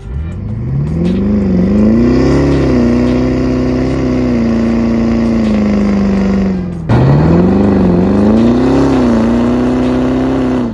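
Buried Ford F-350's turbodiesel V8 at full throttle in a boosted launch, heard from its exhaust pipe sticking up out of the ground: the engine note climbs quickly and holds high, drops sharply about seven seconds in, then climbs and holds high again.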